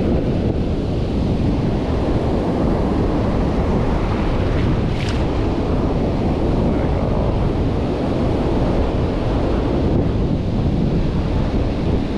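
Ocean surf washing and foaming around the wader's legs in the shallows, with steady wind buffeting the microphone.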